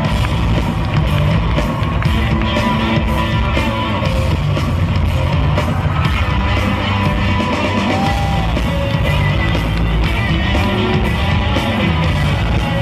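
Loud music with a steady beat, played over the sound system of a large hall.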